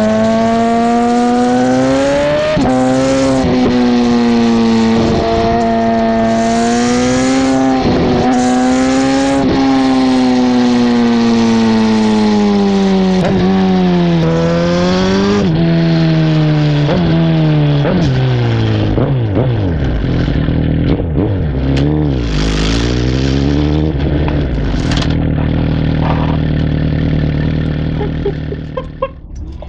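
2009 Suzuki GSX-R1000's inline-four engine through a Two Brothers M2 carbon-fibre slip-on muffler, heard right at the muffler while riding. The exhaust note climbs and falls in pitch through the gears, drops sharply as the bike slows about two-thirds of the way in, then settles low and steady before quietening near the end.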